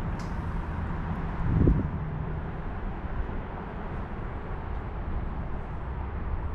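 Steady low outdoor rumble, with one brief, louder low thump about a second and a half in.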